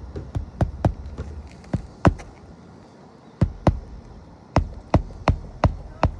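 Hammer driving roofing nails to reattach an asphalt shingle: about a dozen sharp blows, often in quick pairs, with a pause of about a second in the middle.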